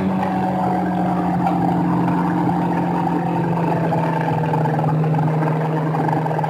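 Sport motorcycle engine running at a steady speed on track, its pitch easing slowly lower, with wind rushing over the onboard microphone.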